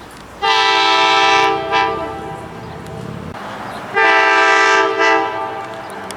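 Locomotive air horn sounding a chord of several notes in two long blasts, each followed straight away by a quick short toot, over the low rumble of the train.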